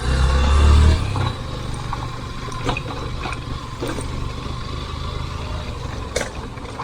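Motorcycle engine running in low gear over a rough gravel off-road trail, louder for about the first second, with scattered knocks from stones and the bike's suspension.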